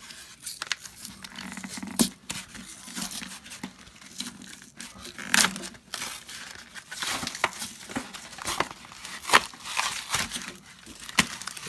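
Plastic-and-cardboard blister packaging of Pokémon card 3-packs being torn open and crinkled by hand: irregular crackling and tearing, with sharper snaps about two, five and nine seconds in.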